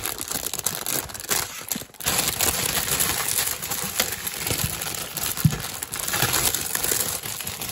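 Clear plastic bags around plastic model-kit runners crinkling and rustling as they are handled and opened, with scattered small clicks.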